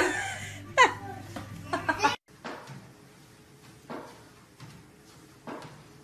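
Short bursts of laughter and a high falling cry, then after a sudden cut, faint short vocal sounds about every second or so.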